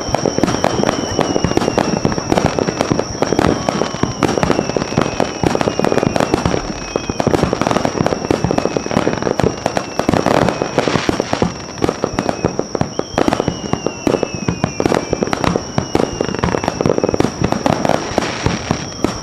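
Fireworks finale: a rapid, unbroken barrage of shell bursts and crackle, with several whistles that slide down in pitch. A steady high-pitched tone runs underneath throughout.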